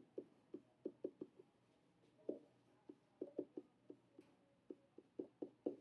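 Faint, irregular taps and short strokes of a stylus writing on a tablet screen, several clicks a second.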